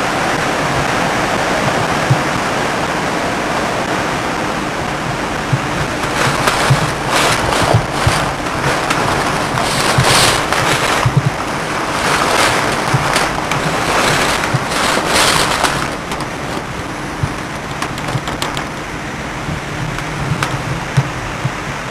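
Windstorm noise: a steady rush of wind and rain that swells in several stronger gusts between about six and sixteen seconds in, with irregular low rumbles of wind on the microphone.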